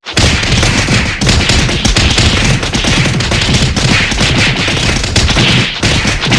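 Gunfire sound effect: sustained rapid shots run together into a dense continuous rattle, starting abruptly and holding at the same loud level throughout.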